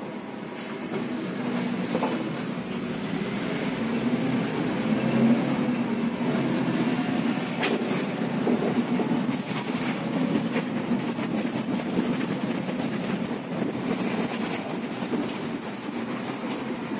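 SOR NB 12 city bus heard from inside the passenger cabin, pulling away and driving on, its running noise growing louder over the first few seconds. Short clicks and rattles from the bus's fittings come through over a rough cobbled road.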